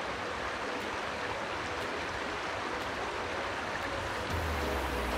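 River water rushing steadily. A low rumble joins about four seconds in.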